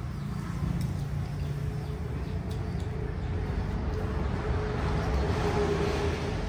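Steady low engine rumble with a faint hum that grows louder through the middle and fades near the end; a few light clicks of chopsticks against bowls.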